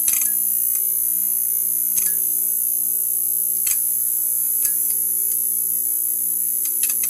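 Neon sign buzzing: a steady electrical hum with a high hiss on top and a soft low throb that pulses about once a second. Sharp clicks break in at irregular intervals, a few seconds apart, with a small cluster near the end.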